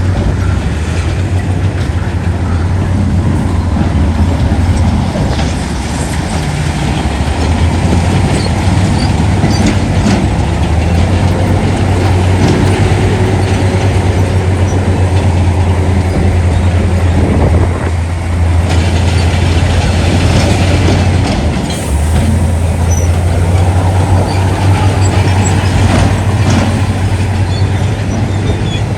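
Heavy earthmoving machinery at work: a deep, steady diesel engine drone with scattered clanks and rattles, its note shifting a few times.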